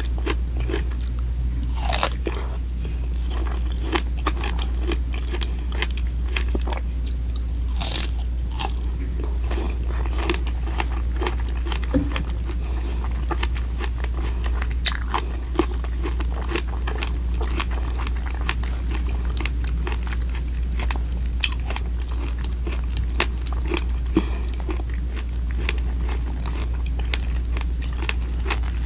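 Close-miked eating: bites and chewing with many small crunchy clicks, over a steady low hum.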